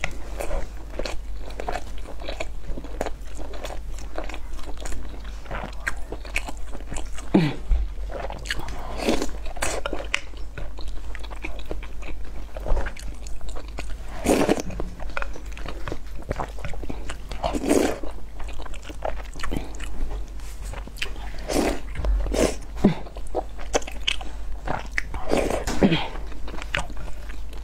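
A person eating braised pork belly and sauce-soaked rice, picked up close on a clip-on microphone: chewing and biting as a steady run of small clicks, some louder, over a low hum.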